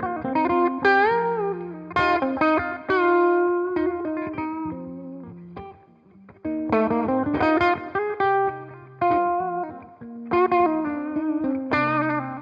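1980 Greco EG-500 Les Paul-style electric guitar with Maxon humbucking pickups, played through an amp: picked chords and single notes with a string bend about a second in, ringing out. A short lull comes about six seconds in, then the playing resumes.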